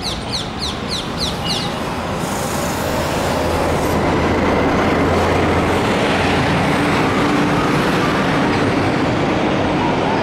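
Loud, steady rumble of passing vehicle noise that builds from about two seconds in and then holds. Before it, a bird gives rapid, repeated high chirps, about five a second.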